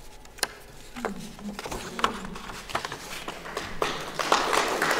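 Audience clapping: a few scattered claps at first, building into fuller applause near the end.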